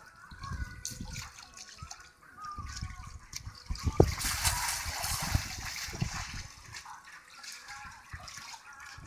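Water splashing and sloshing as a transparent inflatable water-walking ball rolls and lurches on a shallow pool with a child inside, with irregular soft low thumps. A single sharp tap about four seconds in.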